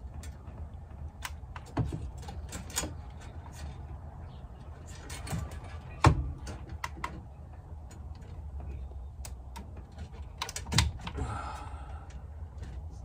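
Small plastic clicks and knocks as wiring connectors are plugged into the back of a car radio head unit and the unit is handled. The loudest knock comes about six seconds in.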